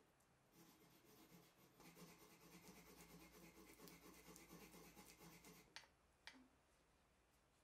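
Faint rapid scratching of a paintbrush stroking paint onto an old Paramo No. 5 bench vice, followed by two short clicks near the end.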